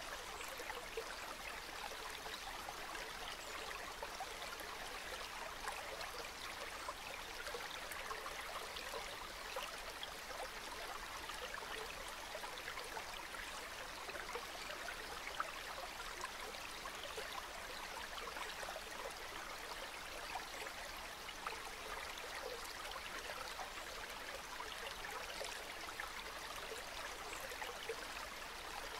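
Calm river water flowing steadily: an even rush of running water with many small trickles and splashes.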